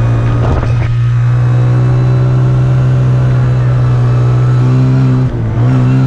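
Arctic Cat four-wheeler engine running at a steady pitch while riding. Its note briefly drops about five seconds in, then picks up again.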